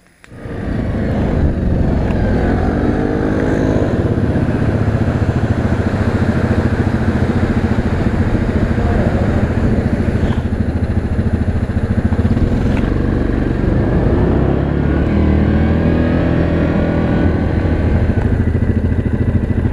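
Yamaha Grizzly 700 ATV's single-cylinder engine running under way. It comes in abruptly, and its pitch rises a few seconds in and again near the end as it speeds up.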